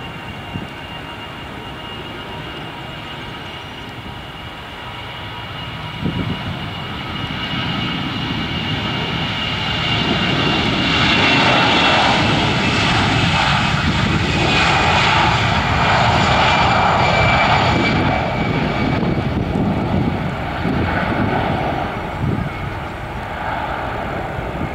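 Airbus A320 twin jet engines at take-off thrust as the airliner accelerates down the runway. A high whine drops slowly in pitch as the aircraft passes. The engine noise builds to its loudest about halfway through, then eases off.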